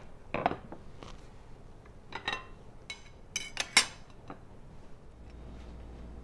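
A few light clinks and taps of ceramic dishware: a small china bowl knocking against a plate as molded rice is turned out, then more clicks as fried Spam slices are laid on the plate.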